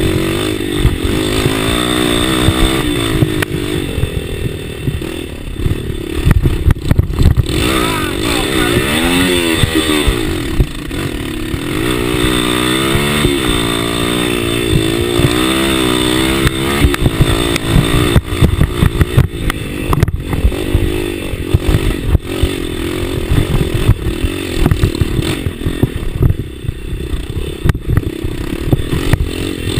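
Enduro dirt bike engine heard from on board, its revs rising and falling repeatedly as it is ridden hard along a rough trail, with knocks and rattles from the bumps.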